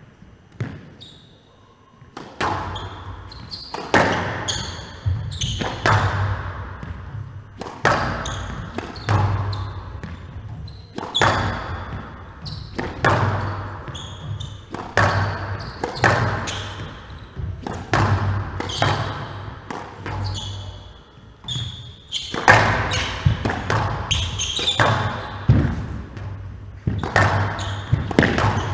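A squash rally: the ball cracks off rackets and walls about once a second, each hit echoing in a large hall, with short shoe squeaks on the wooden court floor. The strikes begin about two seconds in.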